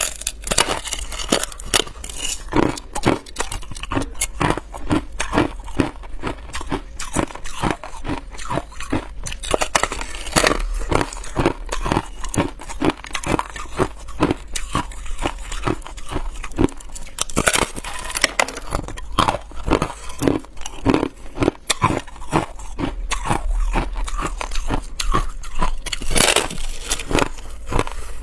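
A person biting and chewing a slab of hard, frost-covered ice close to the microphone: a steady run of sharp crunches at about two a second, with a few louder cracks as bigger pieces break off.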